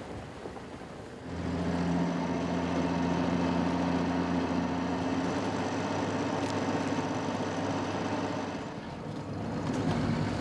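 Heavy log truck's diesel engine running at a steady pitch while driving, heard from inside the cab. It comes in about a second in and dips briefly near the end.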